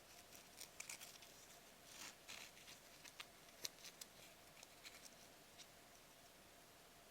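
Faint handling noises of a nylon NATO watch strap and its metal buckle: scattered small clicks and short rustles, with one sharper tick about three and a half seconds in, over a faint steady hum.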